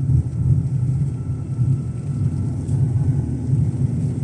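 Steady low road rumble inside a car's cabin while driving at highway speed on studded winter tyres (Antares Grip 60 Ice, 175/65 R14), with a faint thin whine above it.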